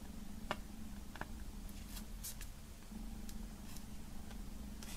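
Knife tip picking and scraping at the plastic shrink-wrap film on a CD case: faint, scattered ticks and scratches, over a low steady hum.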